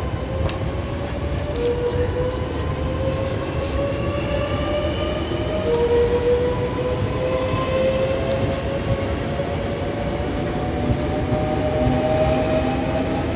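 Electric train accelerating, its traction motors whining in several tones that rise slowly in pitch as it gains speed, over a steady rumble of wheels on rail.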